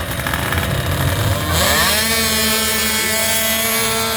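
Small racing ATV engines launching off the line at full throttle. The engine note climbs steeply about one and a half seconds in, then holds at a high, steady pitch.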